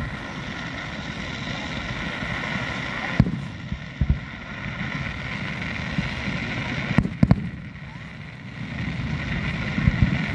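Fireworks shells bursting across the lake, about seven sharp booms one to three seconds apart, two of them in a quick pair, over a steady background of crowd noise and hiss from a fountain firework.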